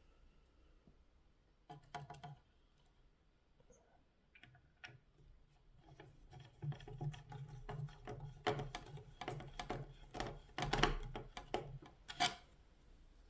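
Screws being driven into the plastic reservoir housing of a Chilisleep Dock Pro water unit. A brief cluster of clicks comes about two seconds in, then in the second half a denser run of clicking and scraping of screws and plastic parts.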